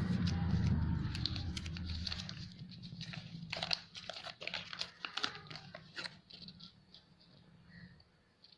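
Kinder Joy egg's foil-and-plastic wrapper crinkling and tearing in quick crackles as it is unwrapped by hand, dying away near the end. A low hum fades out during the first two seconds.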